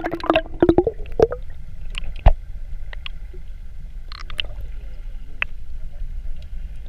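Muffled underwater sound from a GoPro held below the surface in its waterproof housing. Bubbles gurgle for about the first second, then a steady low rumble carries on with scattered clicks and one sharper knock a little over two seconds in.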